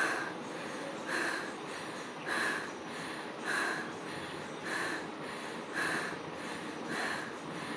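A woman breathing hard in short, sharp breaths, evenly spaced about one a second, as she catches her breath after holding it in a breath-holding challenge.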